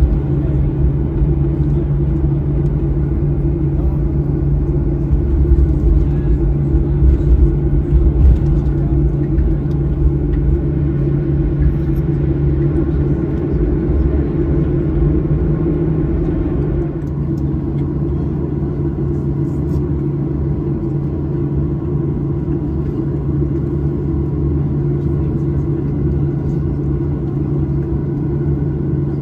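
Cabin noise inside a Boeing 737-900ER taxiing on the ground: its CFM56-7B engines at idle give a steady low rumble and hum. The rumble eases a little about two-thirds of the way through.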